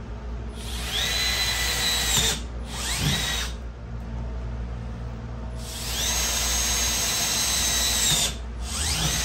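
Power drill with a larger bit boring out the template holes in a motorcycle saddlebag lid. It runs twice with a steady high whine, about a second and a half and then about two and a half seconds, and each run is followed by a short rising rev.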